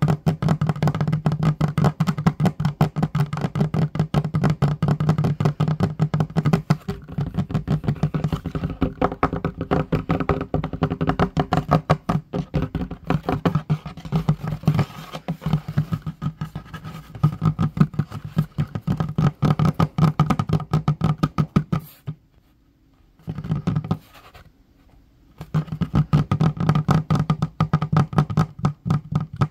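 Rapid fingertip tapping on a wooden tabletop with both hands: a dense, continuous patter of quick knocks with a low woody resonance. It stops twice briefly about three-quarters of the way through.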